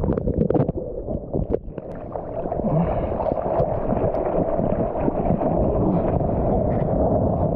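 Sea water rushing and splashing over a surfboard, heard through a waterproof action-camera housing. It is duller and quieter for a moment while the camera is under water, then becomes a steady rush as the board runs through the water.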